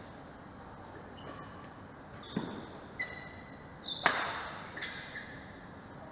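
Badminton rally: sharp racket hits on the shuttlecock, three or four in quick succession with the loudest about four seconds in, mixed with short high squeaks of shoes on the court floor.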